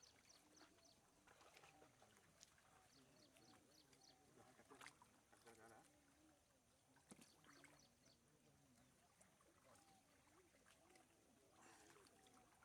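Near silence, with faint distant voices and a few faint high chirps.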